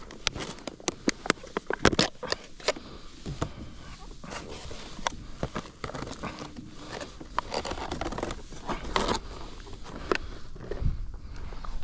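Irregular clicks, knocks and rustling of gear or objects being handled aboard a kayak, a few sharp knocks loudest near the start.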